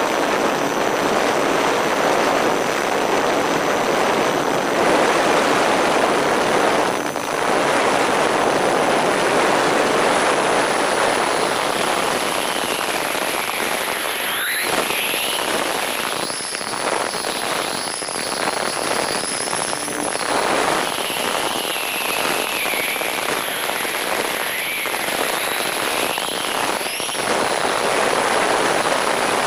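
Wind rushing over the microphone of a camera mounted on an MFD Nimbus Pro 1900 mm RC plane in flight. The whine of its electric motors and propellers rises and falls in pitch from about halfway through.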